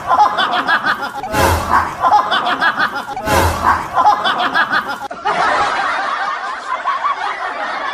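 Laughter, with a thud repeating about every two seconds, as of a laugh sound effect looped; from about five seconds in, a denser stretch of laughter takes over.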